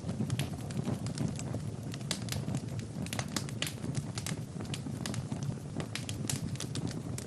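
Wood fire burning in a fireplace: irregular sharp crackles and pops over a steady low rumble of flames.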